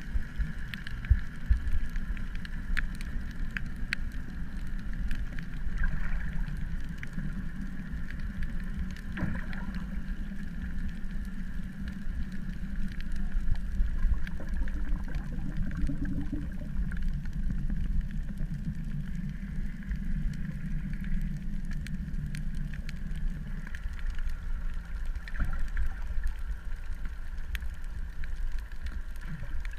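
Steady low drone of a boat engine, with a steady higher hum and scattered clicks and crackles. The drone eases slightly near the end.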